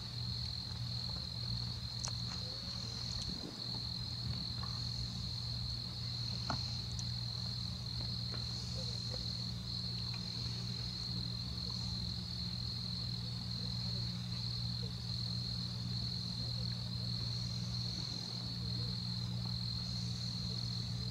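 Crickets trilling in a steady, unbroken high-pitched chorus, over a steady low hum.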